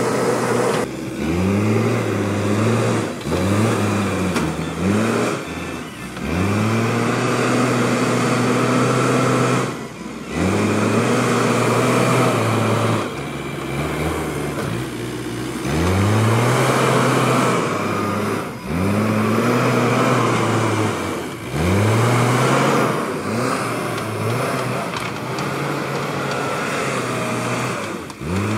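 JCB backhoe loader's diesel engine revving up and dropping back again and again, every two to three seconds, each time rising in pitch and holding before falling away, as the machine works the loader bucket and drives.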